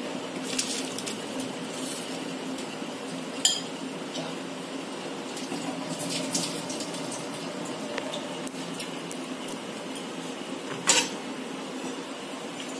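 A metal spoon clinks and scrapes against a cooking pot of water and rice, with a little sloshing. The sharpest clinks come about three and a half seconds in and again near the end, over a steady low hum.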